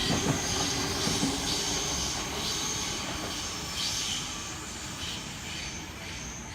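Sydney Trains Waratah electric train running out of the station, its rumble slowly fading as it pulls away.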